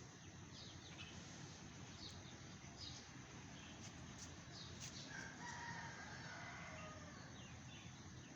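A distant rooster crowing once, a held call about five seconds in, over faint chirping of small birds.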